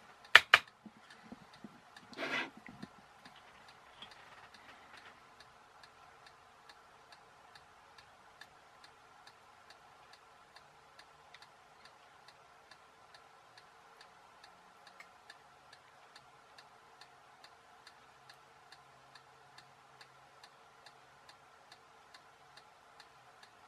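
Faint, steady ticking, about two ticks a second, like a clock in the room, over a faint steady hum. Two sharp clicks just after the start and a brief rustle about two seconds in are the loudest sounds.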